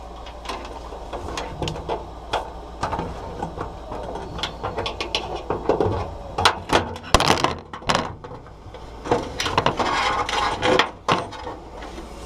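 Irregular clicks, taps and scrapes of a snap-in range hood switch's plastic squeeze clips being worked through its sheet-metal cutout, with longer scraping stretches about seven and ten seconds in.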